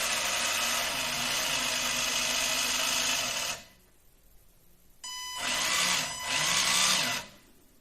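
SG-1603 1/16 RC drift car's electric motor and drivetrain spinning up on throttle with a high whirring whine, in two runs: a long one that cuts off about three and a half seconds in, then a shorter one with two surges. The freshly rebuilt drivetrain sounds smoother.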